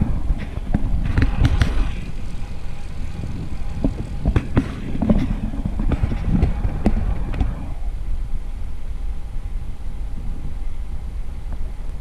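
Riding noise from a bicycle on asphalt: wind on the microphone and a steady low road rumble, with scattered knocks and rattles over the first seven or eight seconds before the rumble turns smoother.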